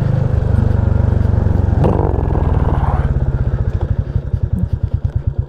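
Royal Enfield Classic 350's single-cylinder engine running steadily. Past the middle the throttle is closed and it falls to a slow, even thumping idle of about eight to ten beats a second.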